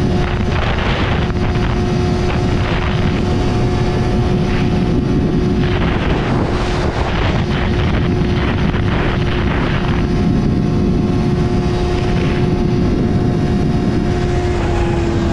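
A sport motorcycle's engine drones at a steady, held pitch while cruising, with wind rushing past the microphone. The engine note eases down slightly near the end.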